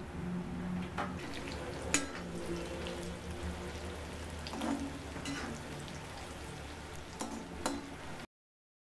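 Cornflour-coated macaroni deep-frying in hot oil in an iron kadai: a steady sizzle, with a few sharp clicks of a metal slotted spoon stirring against the pan. The sound cuts off abruptly near the end.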